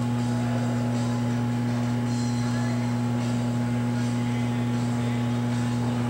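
Lindberg/Blue M HTF-55667C tube furnace running at heat, giving off a low, steady electrical hum over a faint hiss.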